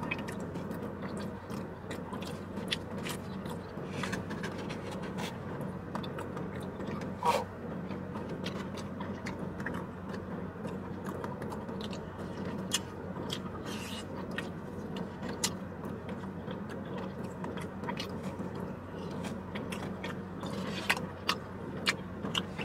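Someone eating from a foam takeout box: a fork scraping and tapping in the container and a run of short clicks and mouth sounds from chewing, over a steady low hum.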